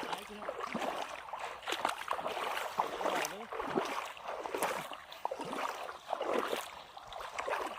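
Shallow pond water splashing and sloshing irregularly as it is waded through and scooped with fishing nets.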